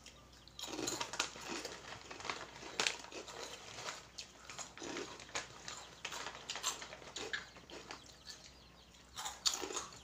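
Crunchy Oishi snack chips being chewed, with the plastic snack bags rustling: an irregular scatter of crackles and clicks.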